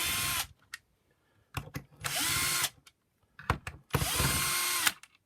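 Cordless power driver undoing the three security Torx screws on a vacuum power nozzle's plastic top cover: three short runs, each under a second, with the motor pitch rising and then falling on each, and small clicks of the bit between runs.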